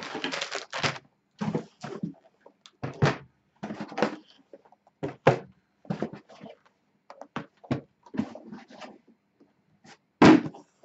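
Boxed power supplies and a foil anti-static bag being lifted out of a cardboard shipping box and set down: a string of irregular knocks, slides and crinkles, with the loudest thump, a box set down on the stack, a little before the end.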